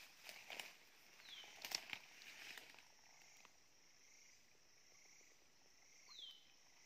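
Footsteps crunching and brushing through dry leaves and undergrowth for the first two to three seconds, then quieter. A bird gives a short falling whistle twice, about five seconds apart, over a faint steady insect hiss.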